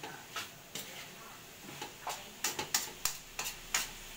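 Metal spatula scraping and clinking against an aluminium wok as pork and string beans are stir-fried, over a light sizzle. The strokes are irregular, coming faster and louder in the second half.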